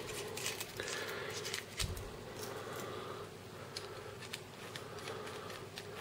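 Faint handling noises from a tactical pen being taken apart by hand: scattered small clicks and rubbing as its sections are unscrewed and set down, with a soft bump about two seconds in.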